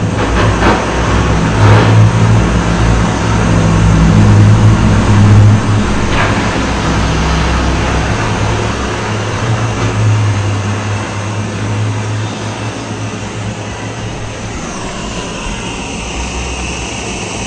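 Hand-held gas torch flame blowing steadily on a small gold bar, heating it red hot to anneal it so it can keep being stretched without cracking. It is loudest in the first half and eases off after about eight seconds.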